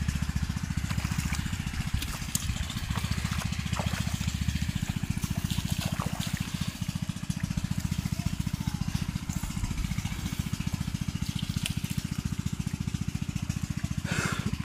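A small engine running steadily, with water trickling and splashing over it.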